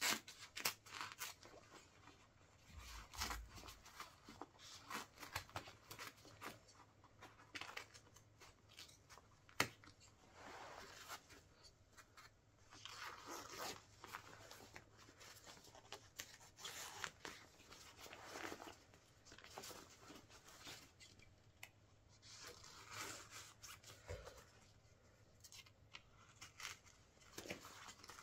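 Fabric of a Wellensteyn Schneezauber jacket being cut and torn apart: an irregular run of snips and rips, some of them drawn out.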